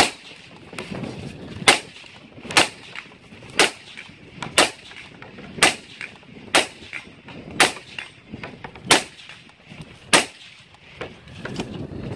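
Suppressed rifle fire from a 7.5-inch Bushmaster Carbon 15 carbine fitted with a Wilson Combat Whisper suppressor: about ten single shots at a steady pace of roughly one a second, ending about ten seconds in.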